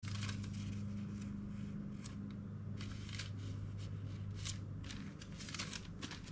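Faint, irregular rustling and soft clicks over a steady low electrical hum.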